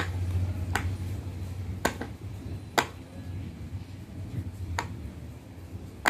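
Silicone pop-it fidget toy bubbles being pressed in, one at a time: about five separate sharp pops at uneven gaps of roughly a second.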